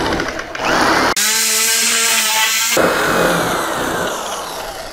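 Electric sheet-metal nibbler cutting steel sheet. The motor spins up with a rising whine about half a second in, runs with a steady buzz for about a second and a half as it punches through the metal, then winds down with a long falling whine.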